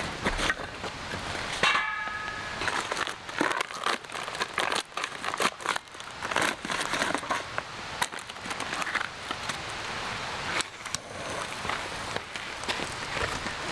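Irregular crinkling and crackling made up of many small clicks, like something being handled. A brief high tone sounds about two seconds in.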